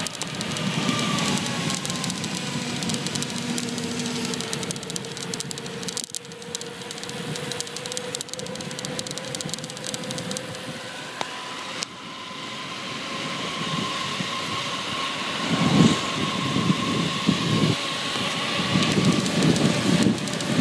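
Wind rushing over the microphone and tyre noise on a fast downhill run, with a faint steady whine; the wind gusts louder about three quarters of the way in.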